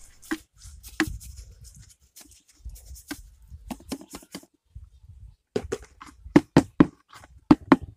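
Wet cement mix being pressed and spread with a small hand tool in the bottom of a plastic container: irregular scrapes and sharp knocks, coming faster and louder in the last two seconds or so.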